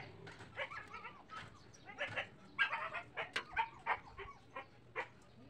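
Domestic animal calls: a quick, irregular string of short cries.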